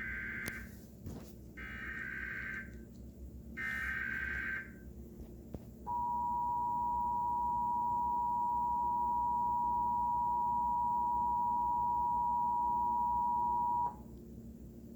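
Emergency Alert System tones: three bursts of the digital SAME header's data tones about a second each, then the two-tone attention signal (853 and 960 Hz together) held steady for about eight seconds before cutting off, marking the start of a national EAS test.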